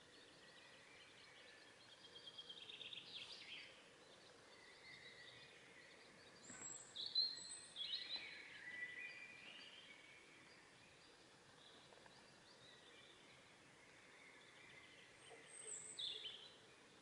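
Faint birdsong from several songbirds: short chirping and trilling phrases, loudest about seven to nine seconds in, over a quiet hiss.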